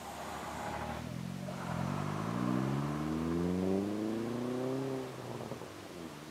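Double-decker bus's diesel engine accelerating away, its note rising steadily for about three seconds, then the revs drop off about five seconds in.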